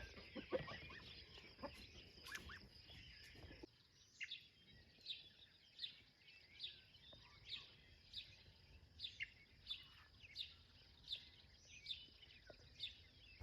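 Faint bird chirps repeating about once or twice a second over near-quiet outdoor background, with a low rumble that stops about four seconds in.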